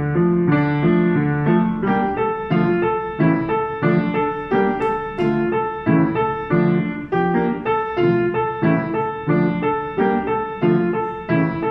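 Upright piano played at a steady pulse: a Chinese New Year song, with a melody over lower accompanying notes.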